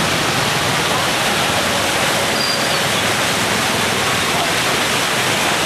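Muddy monsoon floodwater of a rain-swollen river rushing over a low weir, a loud, steady rush of turbulent water.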